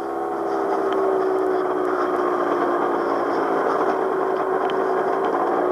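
Gyrocopter engine and propeller running with a steady droning hum, swelling over the first second and then holding nearly constant in pitch.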